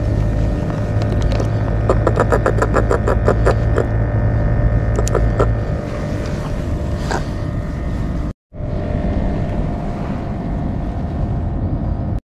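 Steady low rumbling of wind and water noise on a fishing kayak, with a rapid run of about a dozen even clicks about two seconds in from a spinning reel being handled. The sound cuts out for a moment about eight seconds in.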